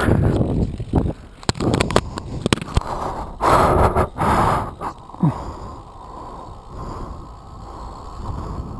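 Wind buffeting the microphone of a bicycle-mounted camera while riding, with knocks and rattles from the bike over the road. The gusts and knocks are thickest in the first half, with a loud rush about halfway through, then settle into a steadier rushing noise.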